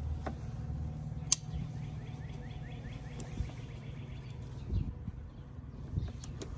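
Honey bees humming steadily in an open hive. A sharp click about a second in and a couple of dull knocks near the end come from a knife working at the queen cage.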